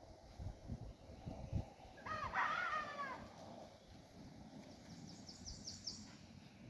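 A rooster crows once, about two seconds in, lasting about a second. Near the end comes a quick run of high chirps.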